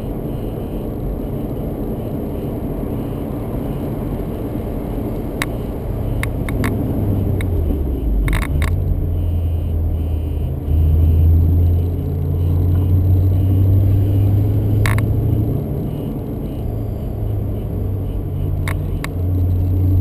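BMW Z8's V8 engine running at low speed with road noise, heard from inside the cabin; the low hum gets louder about six seconds in and peaks around the middle, with a few short clicks.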